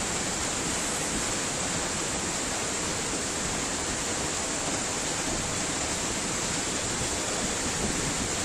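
Muddy flash-flood water rushing down a street in a steady, unbroken rush.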